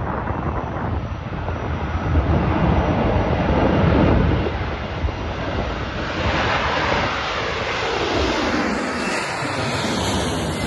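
Air France twin-engine jet airliner taking off at full thrust: a loud jet-engine rush that builds through the first few seconds as it rolls and lifts off. From about six seconds in, it sweeps down in pitch as it climbs past.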